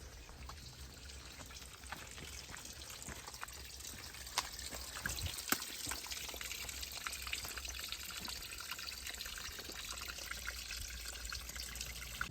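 Small forest stream trickling and splashing, the water getting gradually louder over the first few seconds.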